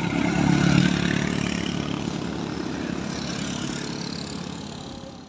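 Automatic scooter's engine running at high revs as it labours up a steep climb while being pushed. It is loudest about a second in, then fades as the scooter pulls away.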